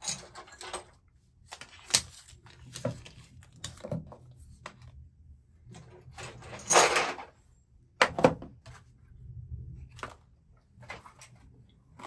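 Padlocks and small items being set down and moved about on a table: scattered metal clacks and knocks, with a longer rustle about seven seconds in.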